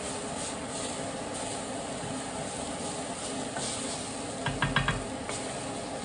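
Diced onion and spices sizzling in a stainless steel pan as a wooden spatula stirs them, fried until their aroma comes out. About four and a half seconds in, a quick run of about four knocks of the spatula against the pan stands out.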